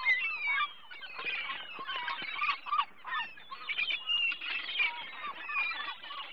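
A large flock of birds calling, many short honking and squawking calls overlapping in a continuous chorus.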